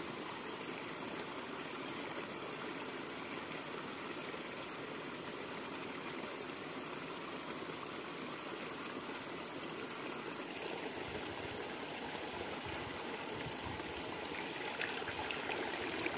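Water flowing steadily in a stream, an even rushing sound, growing a little louder over the last few seconds.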